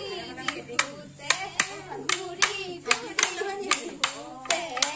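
Sharp rhythmic claps, about two a second, keeping time for a Bihu dance, with women's voices singing a Bihu song over them.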